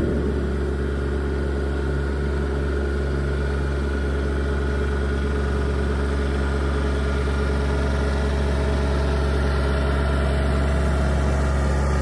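A compact John Deere tractor's engine running at a steady speed as the tractor drives slowly past, getting a little louder toward the end as it comes closer.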